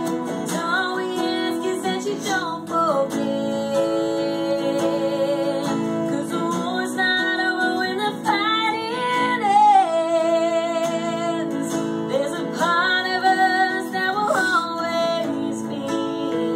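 A woman singing, with some long held notes, over a steel-string acoustic guitar being strummed and picked.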